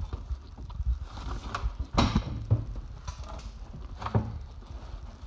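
Handling noise from the filming phone being moved: irregular knocks and rustles, with one sharper knock about two seconds in.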